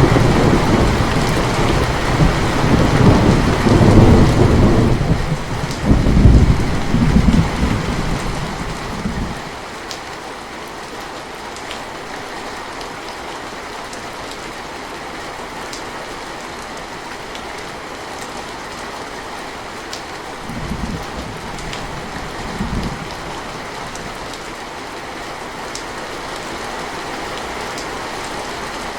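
Steady rainfall with thunder: a long, heavy roll of thunder rumbles through the first nine seconds or so, then the rain carries on alone, with two brief low rumbles of thunder about two-thirds of the way through.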